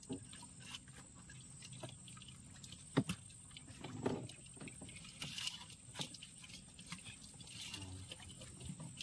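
Scattered small knocks and wet splashes as a baited crab line is hauled in hand over hand over a boat's side, with one sharper knock about three seconds in.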